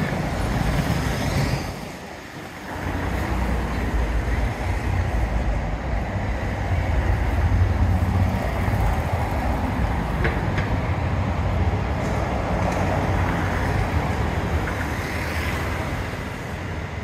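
City street traffic: a steady rumble of vehicles, with cars passing by about a second in and again near the end, and a brief lull about two seconds in.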